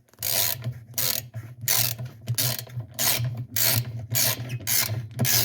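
Ratchet wrench clicking in repeated strokes, about one every 0.6 seconds, as it tightens the 7/16-inch nut that holds a washing machine's agitator.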